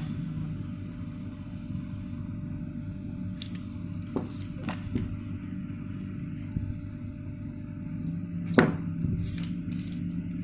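Microwave oven transformer humming steadily, with a few sharp clicks and knocks; the loudest knock is about eight and a half seconds in.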